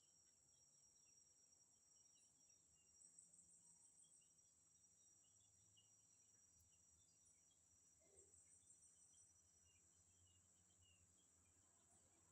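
Faint, steady high-pitched insect drone of crickets, swelling in pulses twice, with scattered soft short chirps.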